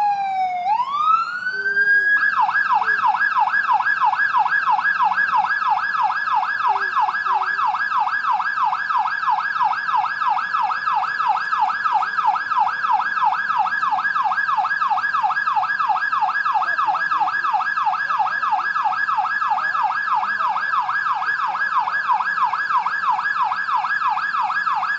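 Electronic emergency-vehicle siren sounding loudly: a slow wail that dips and climbs again over the first two seconds, then switches to a fast yelp of rapid pitch sweeps, about three or four a second, held steadily.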